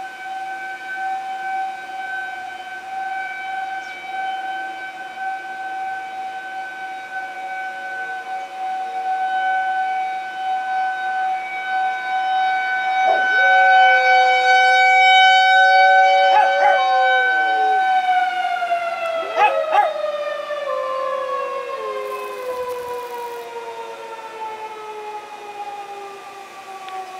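Tornado warning siren holding a steady wail, then winding down with a falling pitch about two-thirds of the way through. A white German Shepherd howls along with it, in two long howls starting about halfway in.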